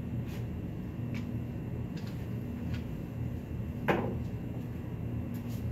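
Steady low room hum with a few faint taps, and one short clack about four seconds in as the dice are gathered up from the felt craps practice table.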